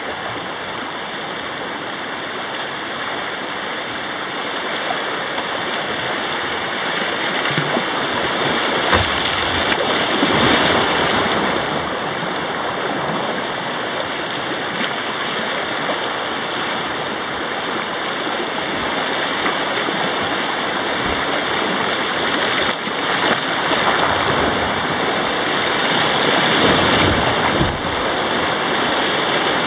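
River rapids rushing steadily around a small boat, growing a little louder toward the end.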